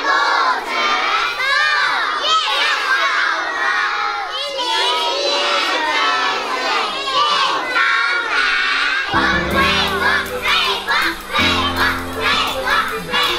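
A room of kindergarten children shouting and chanting together in high voices. About nine seconds in, background music with a steady bass comes in under the shouting.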